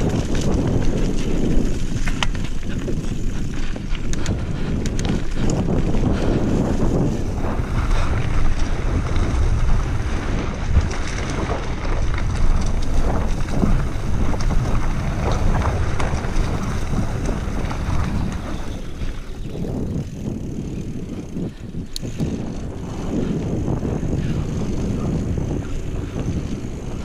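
Wind buffeting the camera microphone on a fast mountain-bike descent, over a steady rumble of tyres on the trail. Scattered sharp clicks and rattles come from the Trek Remedy 7 full-suspension bike, and the noise eases for a few seconds past the middle.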